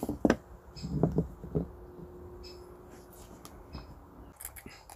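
A Buck 110 folding knife being handled and set down on a wooden tabletop: a few short knocks and clicks in the first couple of seconds, then fainter clicks now and then.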